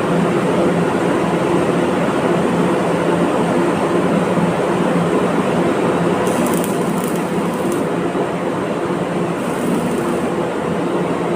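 Arc welding: a steady, loud crackling buzz over a low electrical hum, with brief bursts of higher hiss about six seconds in and again near the end.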